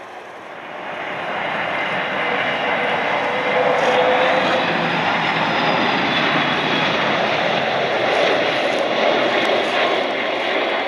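Jet noise from a large four-engine airliner, swelling over the first few seconds and then holding steady and loud.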